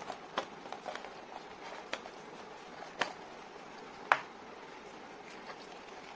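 Handling noise from a Peak Design Slide Lite camera strap and its cardboard packaging: a few scattered sharp clicks and light knocks, the sharpest about four seconds in, over a steady faint hiss.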